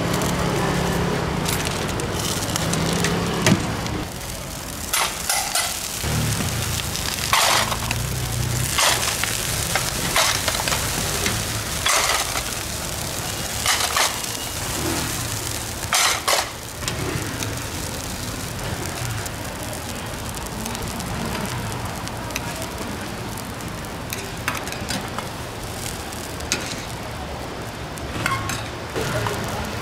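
Oil sizzling on a flat steel griddle as sorghum hotteok fry, with a dozen or so sharp metal clanks from tongs and stainless steel dome lids on the griddle.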